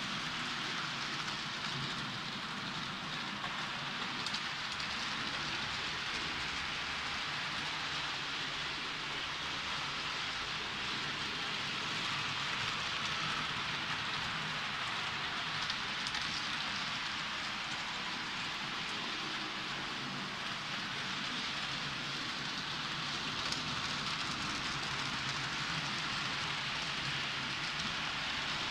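H0-scale model train hauling passenger coaches along sectional track: a steady rushing rattle of the wheels on the rails over a low motor hum.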